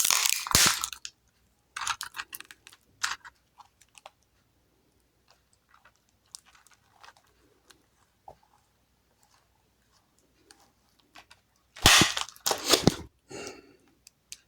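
Crackling and clicking of small plastic parts handled close to the microphone: a loud burst at the start, scattered faint clicks through the middle, and another loud burst about twelve seconds in.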